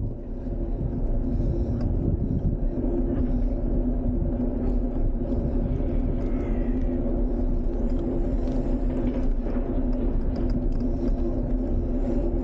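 Steady rumble of wheels rolling over an asphalt path, with a steady hum over it.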